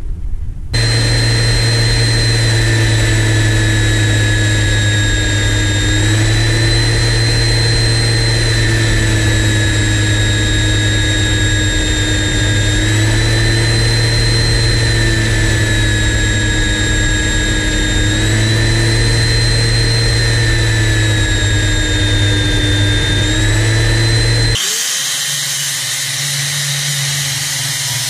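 Upturned handheld belt sander running steadily while a rusty axe head is ground against its belt, the motor's pitch wavering slightly under the load. Near the end it gives way abruptly to an angle grinder working the axe head, a hissier sound.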